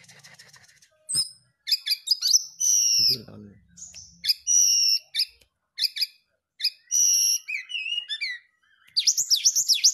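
Brown-chested jungle flycatcher singing: short high whistled phrases, chips and trills with brief pauses between them, ending in a fast run of descending whistled notes, about seven a second.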